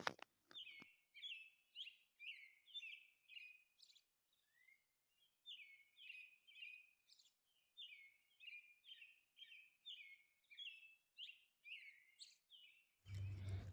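Faint bird chirping: short, high chirps that dip slightly in pitch, repeated about twice a second, with a brief pause partway through.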